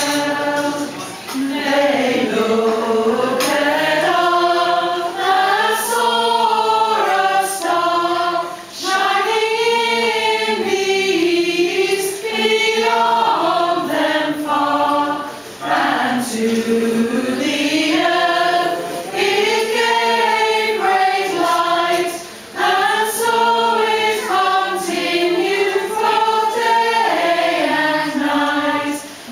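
A choir of mostly women's voices singing a Christmas song together, phrase by phrase with brief dips between phrases.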